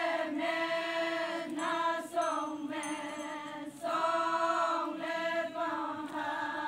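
A group of women singing a Naga folk song together without instruments, in long held phrases with short breaks, over a steady sustained note.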